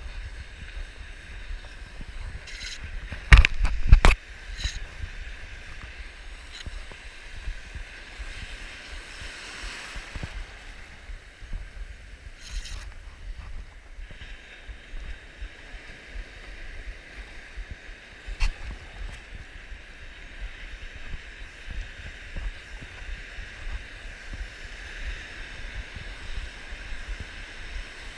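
Wind rumbling on the microphone over a steady wash of water, with a few sharp knocks, the loudest a cluster about three to four seconds in and another near the middle.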